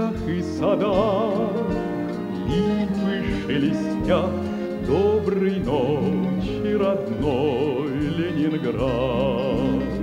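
Orchestral song accompaniment with strings, and a male baritone voice carrying the melody without words, held notes with wide vibrato and upward slides between them.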